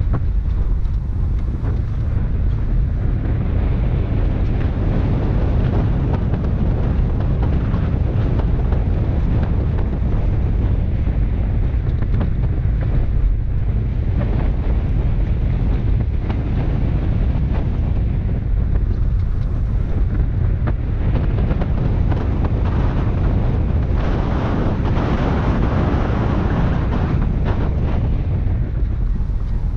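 Steady wind buffeting on the microphone of a camera mounted outside a moving 2003 Subaru Forester, over a low road rumble as the car drives on a snow-covered road.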